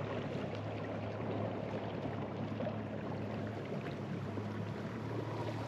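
Small boat's motor idling with a steady low hum, with water lapping against the hull.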